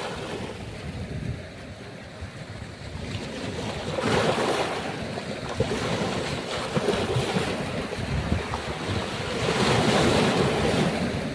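Ocean waves breaking and washing on the shore, the surf swelling twice, about four seconds in and again near the end, with wind buffeting the microphone.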